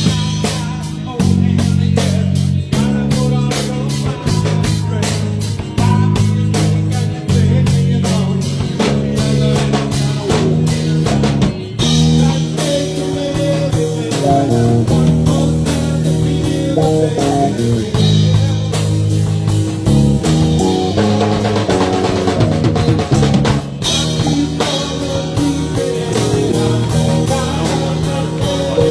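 Live rock band playing: a steady drum-kit beat with bass and electric guitar.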